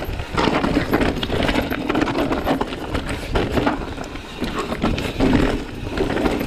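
Mountain bike descending a rocky trail: tyres rolling and crunching over rock and loose stones, with constant rattling and knocks from the bike as it hits the bumps.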